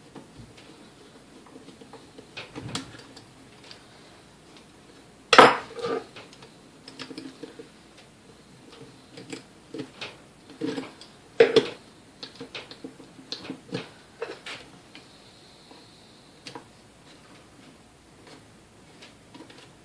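Screwdriver and small metal parts clicking, clinking and scraping against the motor housing of a vintage KitchenAid 3B stand mixer as its speed control plate is worked loose. Scattered irregular taps, the two loudest about five and eleven seconds in.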